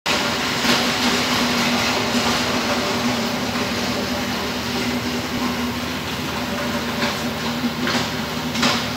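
Steady mechanical hum under a loud, even hiss, with a few brief louder rushes of noise about a second in and near the end.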